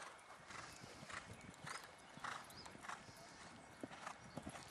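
Faint hoofbeats of a horse cantering on sand footing, a soft beat about every half second.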